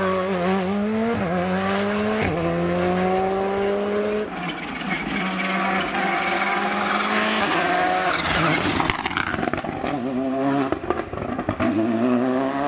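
Rally cars at full throttle on a tarmac stage, among them a Škoda Fabia R5 with its turbocharged four-cylinder engine: the engine note climbs and drops back through several quick upshifts. Around ten seconds in there is a run of sharp cracks and pops as a car slows into a hairpin, then it accelerates hard again.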